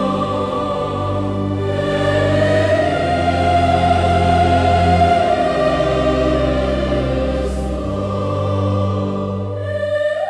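Slow, sacred-sounding orchestral music with a choir and a held wordless female voice over low sustained bass notes.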